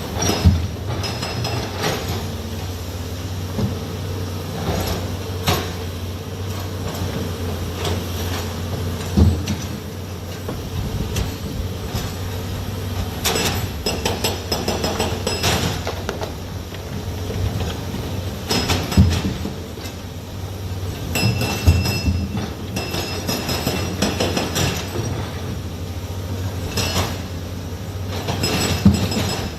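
Heavy machinery running with a steady low engine hum, with irregular metallic clanks and knocks over it.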